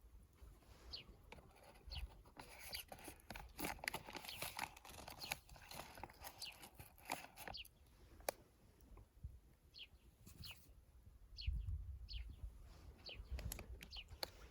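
Scattered crackles and snaps of burning or breaking twigs, thickest in the first half, while small birds give short chirps about once a second throughout.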